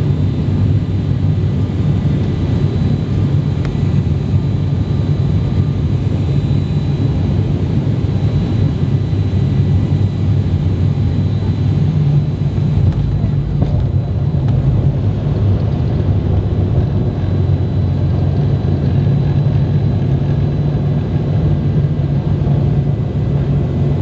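Cabin noise of an ATR 42-500's turboprop engines and propellers during landing and the roll-out: a loud, steady low drone with faint thin high tones above it.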